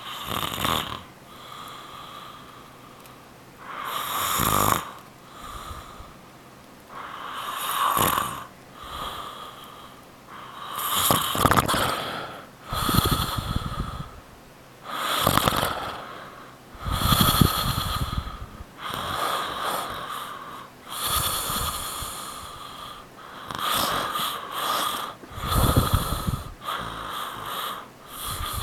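A man snoring in his sleep, a snore about every four seconds at first and then about every two. Some snores are deep and rattling, others thinner with a whistling tone.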